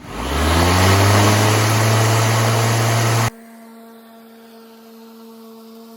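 Greenworks 20-inch corded electric lawn mower's motor and blade starting up, winding up to speed within about a second and then running steadily. It stops abruptly about three seconds in, leaving a faint steady hum.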